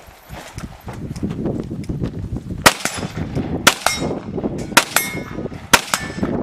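Four shots from a .223 AR-15-style rifle, about one a second, starting about two and a half seconds in; some are followed by a short metallic ring from a hit steel target.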